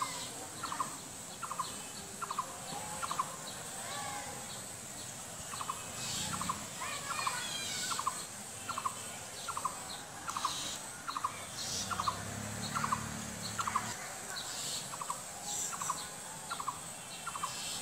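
A bird repeats a short, clipped call evenly, about two to three times a second, without a break. Other birds chirp higher above it now and then.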